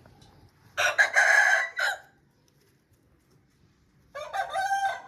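Aseel rooster crowing twice: one crow about a second in, lasting about a second, and another starting near the end.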